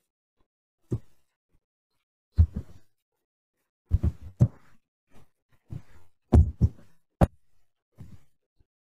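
Computer keyboard keystrokes picked up by the microphone as dull knocks, coming irregularly in small clusters.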